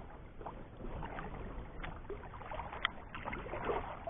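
Ambient sound from a fishing kayak on open water: faint water and air noise with small scattered knocks.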